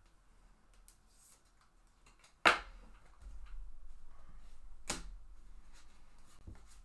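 Trading cards and a clear plastic card holder being handled: a sharp snap about two and a half seconds in and a second one near five seconds, with light rustling of cards between.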